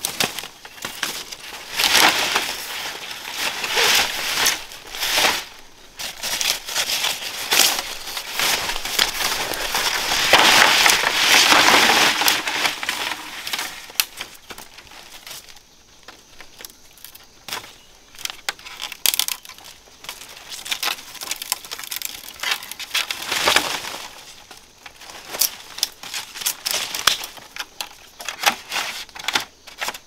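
Irregular rustling and crunching with many short crackles and clicks, loudest about ten to twelve seconds in and sparser later.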